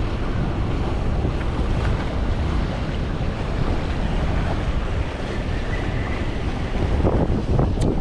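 Wind buffeting the microphone over the steady wash of ocean surf, with a brief sharp click near the end.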